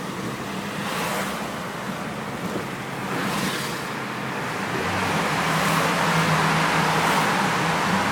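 VW Polo GTI 6N2's 1.6-litre four-cylinder engine, breathing through a BMC CDA open induction kit on a standard exhaust, driving along over road and wind rush; the engine note strengthens and gets louder about five seconds in as the car accelerates.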